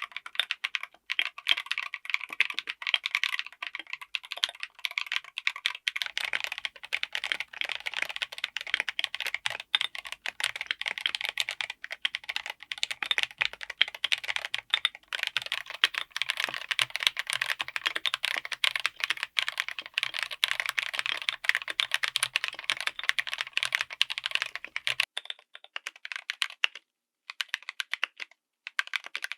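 Fast continuous typing on a mechanical keyboard fitted with tactile switches, a dense run of keystroke clicks. About a quarter of the way in, a faint low hum joins the clicks. Near the end the typing thins to a few separate keystrokes before picking up again.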